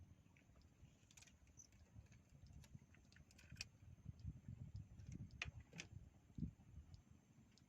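Near silence: a faint low rumble with scattered small clicks and ticks.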